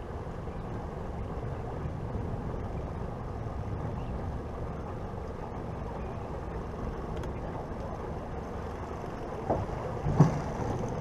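Boat's outboard motor running at low idle as the boat eases slowly toward its trailer: a steady low rumble. A brief louder sound comes near the end.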